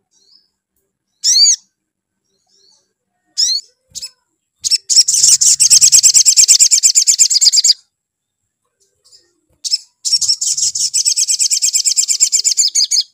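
Male olive-backed sunbird singing: two short down-slurred chirps, then a rapid chattering trill of fast repeated notes for about three seconds. After a pause, a second trill of about three seconds runs nearly to the end.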